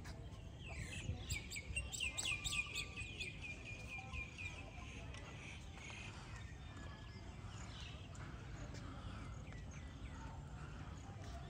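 A bird calling outdoors: a fast series of short, high, falling notes, about four a second, for roughly three seconds, then a few scattered softer calls over a steady low background rumble.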